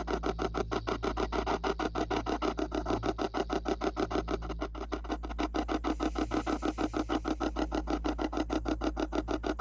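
Spirit box sweeping through FM radio frequencies, chopping radio static into a rapid, even rasping pulse of about eight bursts a second.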